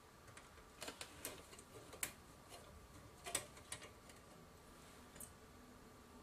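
A handful of faint, irregular clicks and ticks from a small screwdriver working the screws that hold a circuit board in a Sony PMW-EX1 camcorder's metal chassis.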